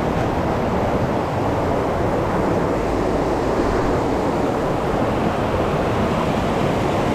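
Fast-flowing river rushing over rocks and rapids: a steady, loud rush of water.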